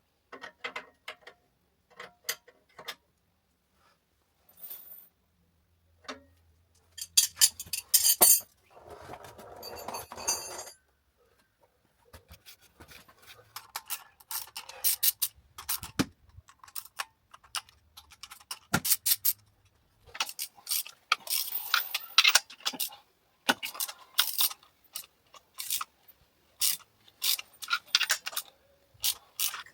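Metal hand tools and parts clinking and clattering: irregular sharp clicks and knocks, with a longer scraping rustle about eight to ten seconds in.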